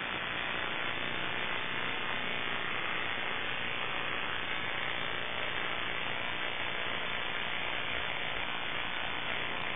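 Small electric motor and propeller of an FPV model plane buzzing steadily at low throttle.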